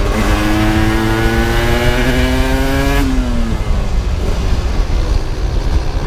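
Aprilia RS 125's two-stroke single-cylinder engine accelerating hard, its pitch rising steadily for about three seconds, then dropping away abruptly as the revs fall off. Wind rushes over the onboard microphone throughout.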